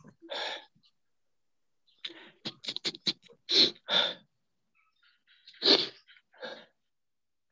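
A person with a head cold sneezing several times, in short, sharp bursts of breath, the loudest a few seconds in.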